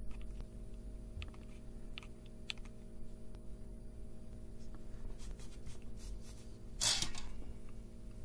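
Small taps and scratches of tools working on a soldered circuit board to clear a solder bridge, with a short, louder scratchy noise about seven seconds in, over a steady low hum.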